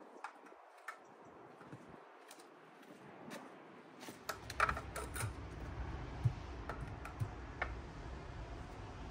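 Footsteps on timber decking and the knocks and clicks of a spirit level and hand tool being carried and set against a fence post, with a few louder knocks about halfway through. A low steady rumble comes in about four seconds in.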